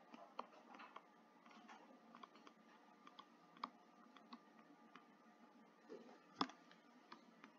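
Faint, irregular clicks and taps of a stylus on a tablet screen during handwriting, the loudest about six and a half seconds in.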